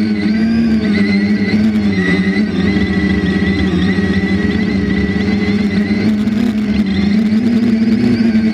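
3DR IRIS+ quadcopter's electric motors and propellers whining steadily in flight, heard close up from the drone's onboard camera, the pitch wavering slightly as the throttle changes.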